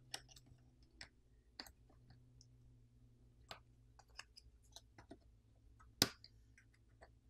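Faint scattered clicks and ticks of a plastic pry pick and fingers working the speaker assembly of an Asus Zenfone 7 Pro loose from the phone's frame, with one sharper, louder click about six seconds in.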